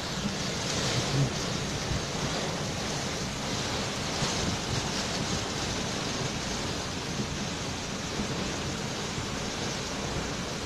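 Torrential tropical-cyclone rain pouring down in gusting wind: a steady, dense hiss with no break.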